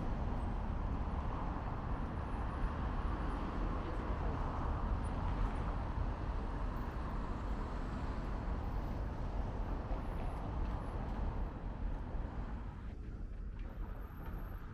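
Steady street traffic noise with a low rumble, dying away about twelve seconds in.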